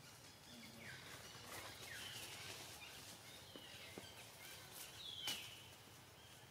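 Quiet forest ambience with a few faint, high chirping calls scattered through it, and one sharp click about five seconds in.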